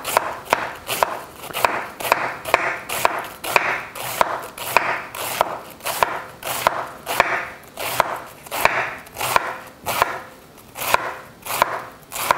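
A knife finely chopping a head of green cabbage on a wooden cutting board, in steady strokes about twice a second. Each stroke cuts through the leaves and knocks on the board.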